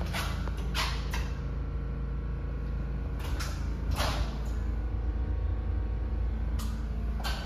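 Steady low hum with a few faint knocks and rustles over it.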